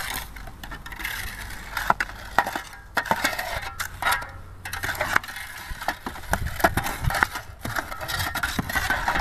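Hand shovels scraping into a pile of sand and tossing it into a truck bed as the truck is loaded by hand. Irregular scrapes and gritty crunches, several a second, from more than one shovel.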